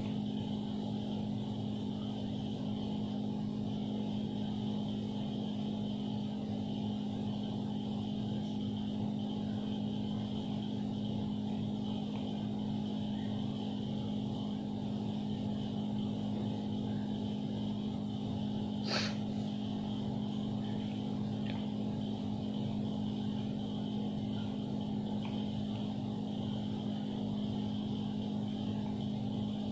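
A steady mechanical hum at one constant pitch, with a single short click about nineteen seconds in.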